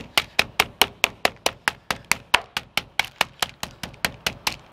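Meat tenderizer mallet pounding chicken breasts through a plastic zip-top bag on a wooden cutting board: a steady run of blows, about four a second, flattening the meat.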